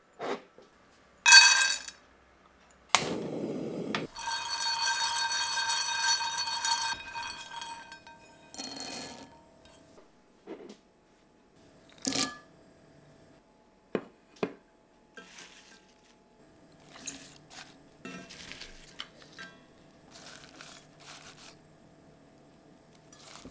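Toasted pine nuts and then cashew nuts tipped into a glass measuring jug. A sharp clink comes first, then a few seconds of nuts pattering in while the glass rings. Single knocks follow, and then scattered light taps, clinks and rustles of small bowls and ingredients being handled.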